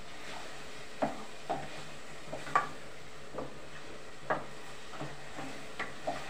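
Wooden spoon stirring meat in a metal saucepan, knocking and scraping against the pot in irregular taps about every half second, the loudest about two and a half seconds in, over a faint steady hiss.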